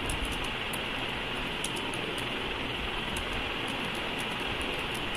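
Steady background hiss of room noise, with faint scattered keyboard clicks as text is typed.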